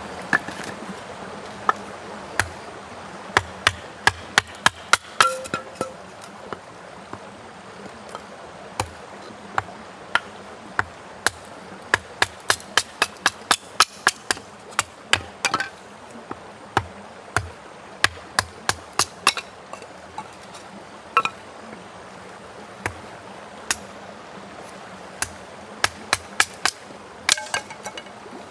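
Hatchet splitting firewood into kindling on a wooden chopping stump: many sharp wooden knocks, irregular and sometimes several in quick succession, over a steady background hiss.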